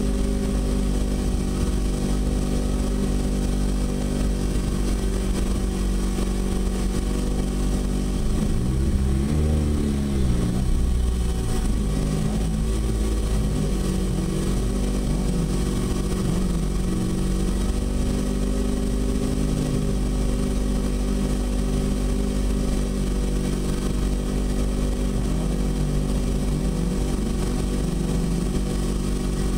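Nissan 100NX's turbocharged SR20DET four-cylinder idling, heard from inside the stripped cabin. About eight seconds in the revs rise and fall in a few throttle blips, with smaller blips later on.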